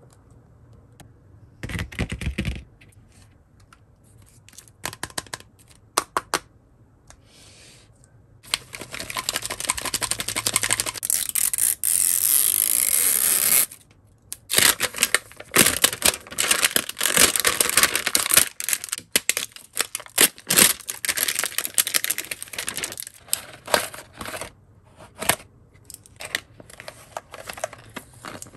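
The plastic wrapper of a toy package is torn open in one long rip lasting about five seconds, then crinkled and rustled in quick, dense crackles as it is pulled off the capsule. A single thump comes near the start as a plastic toy is set down.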